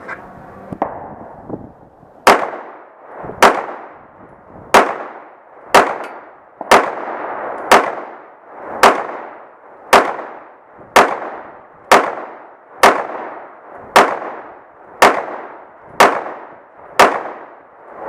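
Heckler & Koch VP9 9mm pistol firing fifteen shots, a full magazine, at a steady pace of about one a second, each shot ringing out briefly afterwards. A few light clicks come just before the first shot.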